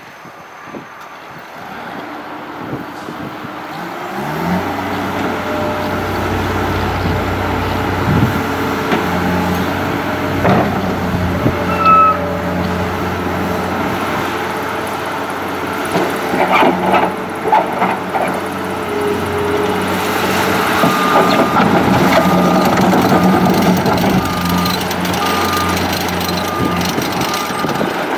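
Terex PT60 skid steer's diesel engine comes up to speed about four seconds in and runs steadily, with some rattling and clatter in the middle as the machine works. Near the end its backup alarm beeps about once a second.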